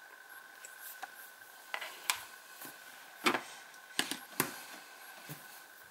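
Handling noise as a Sony Xperia Z5 Compact smartphone is turned in the hand and set down on top of an Xperia Z3+ on a tabletop: a handful of light taps and knocks, the loudest about three seconds in. A faint steady high whine runs underneath.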